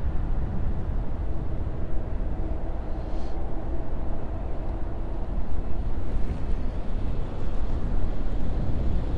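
Wind rushing over the microphone of a moving bicycle, a low, uneven rumble, with a faint steady hum underneath.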